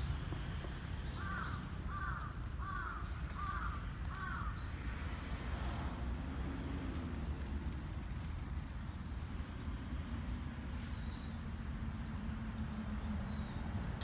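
A crow cawing five times in quick succession, starting about a second in, over a steady low rumble. A few short, high bird chirps follow later.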